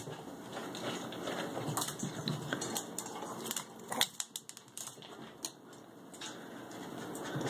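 A Pomeranian's claws clicking and skittering on a tiled floor as it runs about excitedly, in quick irregular taps, the loudest about four seconds in.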